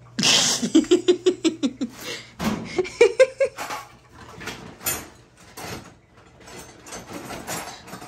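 A person bursting out laughing: a sharp breathy outburst, then a quick run of 'ha' pulses for about two seconds, and a shorter, higher laugh around three seconds in. After that come light knocks and rustling as things are moved about.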